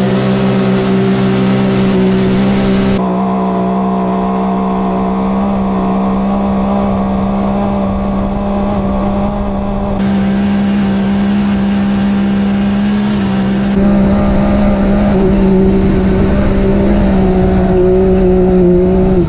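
Can-Am Maverick X3 Turbo's turbocharged three-cylinder engine at full throttle, held at a steady high pitch during an uphill drag run from a standing start in the sand, heard from inside the cabin.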